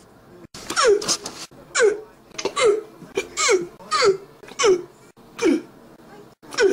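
A person hiccupping repeatedly, about one hiccup a second, each a short squeaky 'hic' that falls in pitch.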